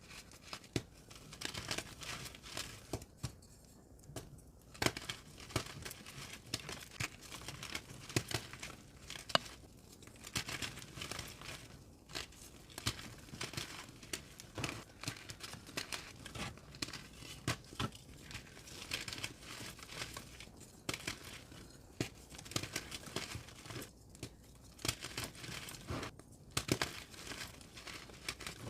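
Pressed gym chalk reform blocks being crushed and crumbled, a dense run of small crunches and crackles with a few short pauses.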